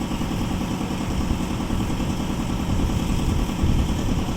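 Concrete mixing machine's engine running steadily, a loud, even low-pitched drone.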